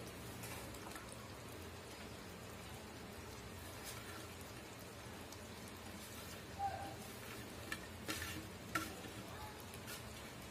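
Chicken curry masala sizzling faintly in a pan on low flame, with a few soft taps and clicks from about four to nine seconds in as chopped onions are tipped in on top.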